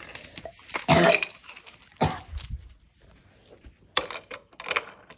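Wooden toy trains and wooden track pieces knocking and clattering together in a few separate sharp knocks, with a short throaty noise about a second in.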